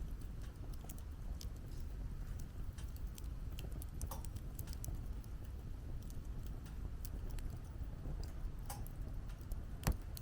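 Wood fire crackling: scattered irregular pops and ticks over a steady low rumble, with one sharper snap near the end.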